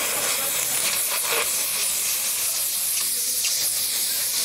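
Oxy-acetylene cutting torch hissing steadily as it cuts through metal.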